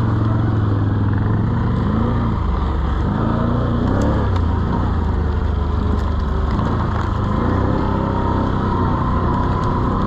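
An 800 cc quad (ATV) engine running under load, its pitch rising and falling repeatedly as the throttle is opened and eased.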